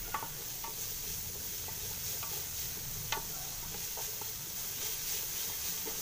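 Chopped vegetables (carrot, beans, cabbage, green peas) sizzling steadily in oil in a kadai as a spatula stirs them, with a light scrape or tap of the spatula on the pan now and then.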